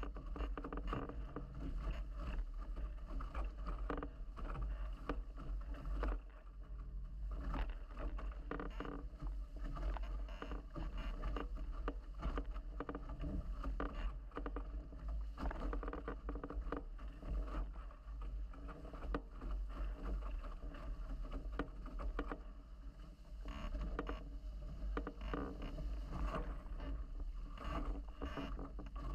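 Nacra 17 racing catamaran hulls slicing through choppy water at speed: continuous rushing and splashing of water, with constant spray and slaps, over a deep steady rumble.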